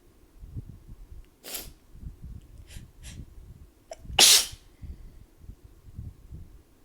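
A person sneezing: a breathy burst, two short breaths, then one loud sneeze about four seconds in. It is part of a sneezing fit that the uploader puts down to temperature changes after a shower, together with allergies.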